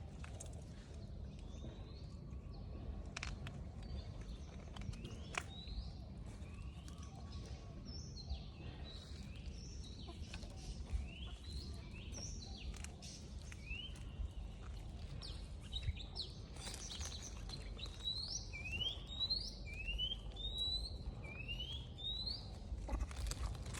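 Birds chirping: a run of short, rising chirps that come thicker and faster in the last several seconds, over a steady low rumble of outdoor background noise.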